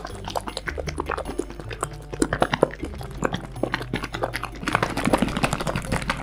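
Plastic squeeze bottle holding flour, milk, oil and an egg being shaken hard to mix pancake batter: a quick, irregular clatter of small knocks, busiest in the second half.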